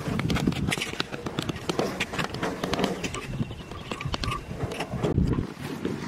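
Irregular scratching, scraping and light knocking of a thin stick digging into dry, sandy soil.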